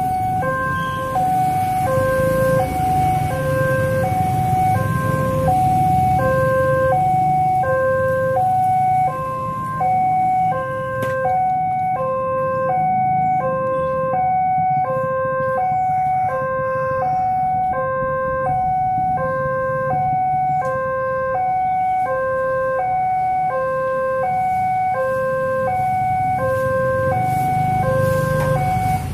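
Railway level-crossing alarm sounding: an electronic two-tone signal alternating evenly between a lower and a higher tone, the warning that a train is approaching and the barriers are closing. A low motorbike engine rumble runs beneath it in the first several seconds and again near the end.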